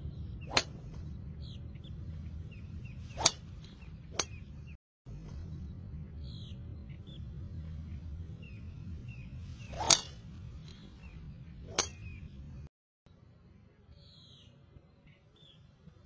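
Sharp cracks of golf clubs striking balls on a driving range, five in all, the loudest about three and ten seconds in. Small birds chirp throughout over a low steady background rumble.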